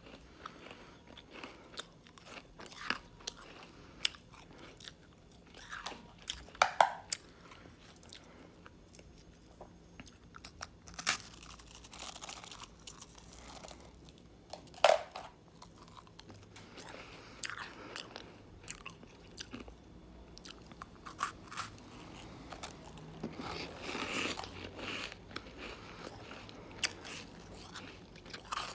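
Shaved ice made from frozen sparkling water being bitten and chewed: irregular crisp crunches, two of them much louder, about a quarter and about halfway through.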